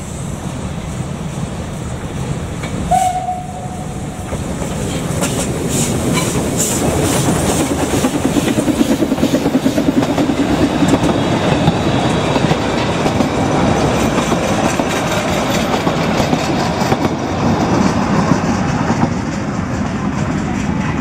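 Narrow-gauge steam train passing a level crossing: a short whistle blast about three seconds in, then the locomotive and coaches go by with a rumble and the wheels clicking over rail joints, loudest around the middle and easing off toward the end.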